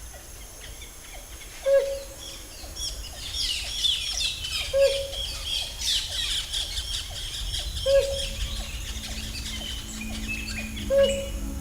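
Tropical forest bird chorus: many birds chirping and calling high up, busiest in the middle. One short, louder low call repeats about every three seconds.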